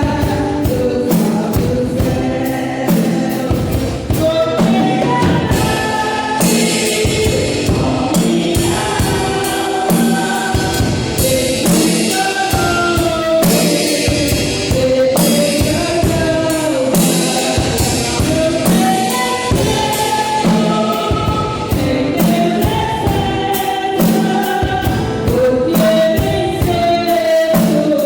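Gospel song with a choir singing over a band and a drum kit keeping a steady beat; the snare drum is mixed very low.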